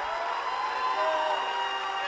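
Large audience applauding and cheering, with a few whoops rising and falling over the clapping.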